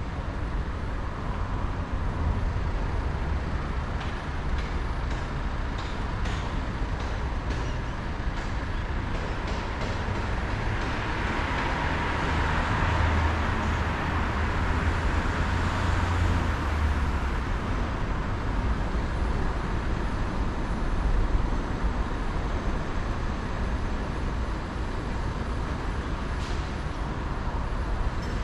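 Road traffic noise, a steady low rumble, with a vehicle passing that swells and fades about halfway through.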